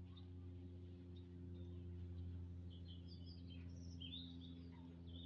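Faint steady low hum with a few small bird chirps over it, about three to five seconds in.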